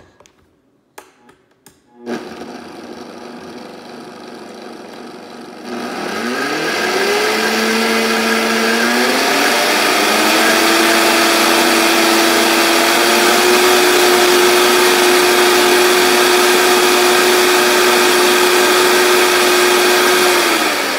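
Vitamix blender switching on about two seconds in at low speed, then winding up to full speed about six seconds in and running steadily, pureeing aloe vera gel into a froth.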